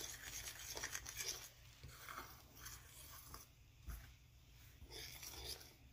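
Faint scraping and rubbing of a utensil stirring freshly wetted pizza dough (flour, yeast water and olive oil) in a mixing bowl, with a soft knock about four seconds in.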